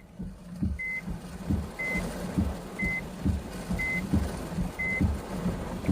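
Car's electronic warning chime beeping about once a second, six short, identical high beeps, over the low rumble of wind and heavy rain.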